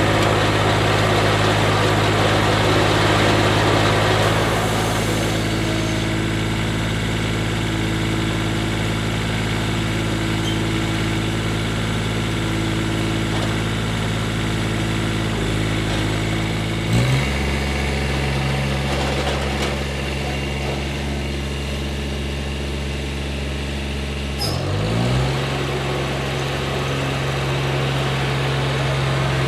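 Kubota garden tractor engine running steadily. Its note changes suddenly a little past halfway and glides briefly again near the three-quarter mark, as the engine speed shifts.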